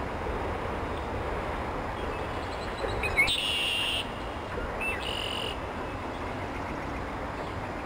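A bird sings twice, about three seconds in and again about two seconds later. Each song is a short note followed by a buzzy trill lasting under a second, over a steady low rumble.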